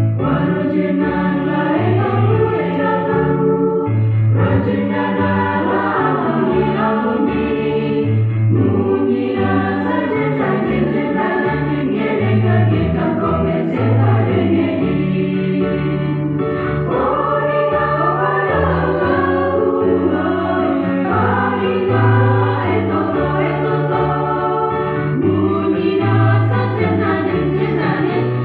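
A mixed choir of women's and men's voices singing a song in harmony, over a low line that steps from note to note.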